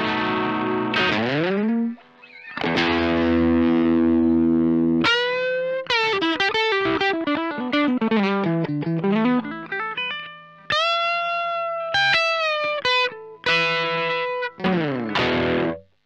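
Samick Greg Bennett Royale RL-1 semi-hollow electric guitar played with overdrive. It opens with ringing strummed chords, then a single-note lead line that steps down and climbs back up, with held notes. It ends on a last chord that cuts off at the very end.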